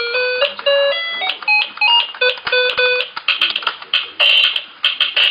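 Children's toy electronic keyboard playing a quick run of short, beeping synthesized notes, then a rapid string of noisy percussion sound effects from its built-in drum accompaniment.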